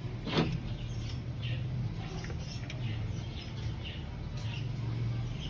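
Hand-tool work on an engine's belt and pulley: one sharp knock about half a second in, then scattered faint high chirps and small clinks over a steady low hum.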